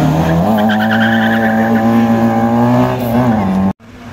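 Peugeot 205 rally car's engine held at high revs through a tight corner, with tyres squealing as the car slides. The note rises about half a second in and then holds steady, and it cuts off suddenly near the end.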